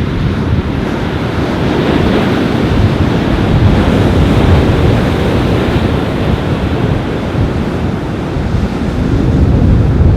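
Ocean surf washing on a beach in strong wind, with wind buffeting the microphone in low rumbling gusts.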